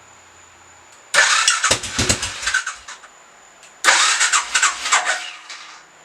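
Suzuki Savage's 650 cc single-cylinder engine being started twice, each attempt about two seconds of cranking with ragged firing that dies out. It only runs for a second at a time because it is short of fuel, with no proper gas supply attached.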